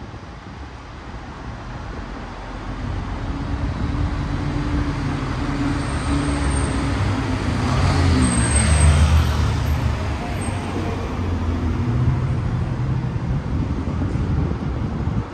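A car engine in city traffic drives past, growing louder to a peak about eight or nine seconds in and then fading, its engine pitch dropping as it passes.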